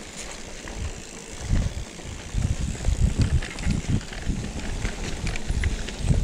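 Mountain bike riding down a rough dirt trail: a low rumble of thumps as the bike jolts over the ground, with sharp rattles and clicks of the bike's parts. It gets louder and rougher about a second and a half in.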